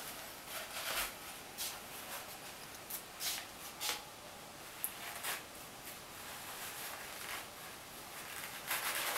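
Paper towel rustling and tearing as a cat bites and claws at a shredded roll: faint, irregular crinkles, coming thicker near the end.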